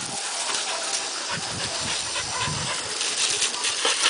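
Garden hose spraying water with a steady hiss onto gravel, with a dog playing and snapping at the stream.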